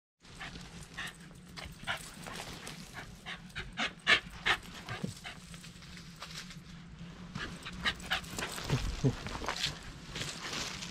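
Shiba Inu moving about excitedly, giving short panting breaths and small whimpers, with many quick irregular sounds as it hurries around; the dog has been led to expect a walk.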